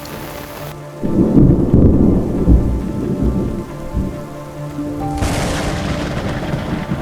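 A loud thunderclap rumbles in about a second in and rolls on, slowly easing, over several seconds. The hiss of heavy rain comes back around five seconds in. Soft sustained music tones sit underneath.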